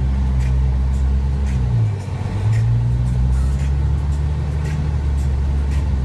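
Car engine running as heard from inside the moving car's cabin, with road noise. The engine note drops briefly about two seconds in, then picks up again.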